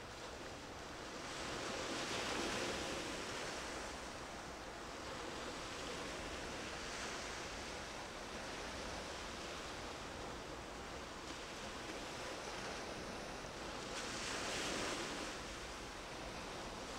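Sea waves washing in with a steady rush of wind, the surf swelling louder a couple of seconds in and again near the end.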